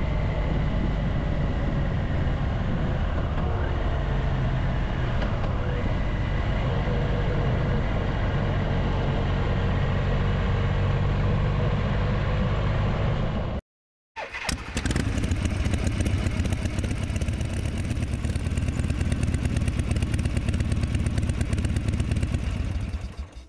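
Triumph Tiger Explorer 1200 three-cylinder motorcycle running at a steady pace while being ridden. The sound cuts out for about half a second a little past the middle, resumes, and fades away at the end.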